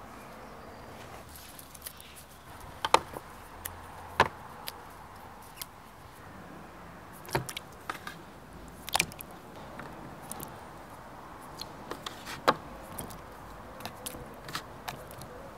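Fresh tomatoes being handled, pulled off the vine and put into a plastic basin, giving a handful of sharp clicks and knocks at uneven intervals over a faint steady background.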